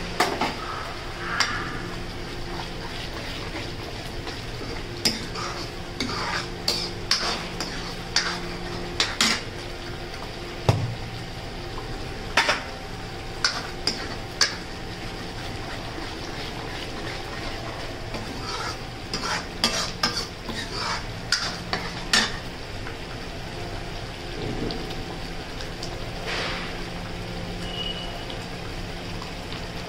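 Steel spoon stirring and scraping thick masala gravy in a steel kadai as it cooks down, with sharp clinks of the spoon against the pan coming in flurries through the first two-thirds and then thinning out. Beneath it, the gravy sizzles steadily over a low, even hum.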